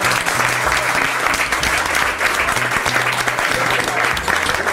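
Audience applauding: many people clapping steadily together at their dinner tables.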